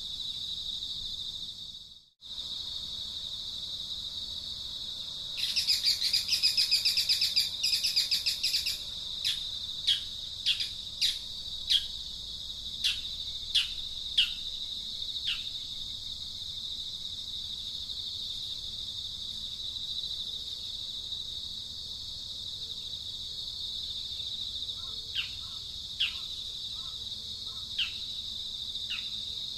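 Steady high-pitched insect drone, with a loud rapid trill about six seconds in, then a string of short, sharp bird chirps that fall in pitch; the sound cuts out for a moment near the start.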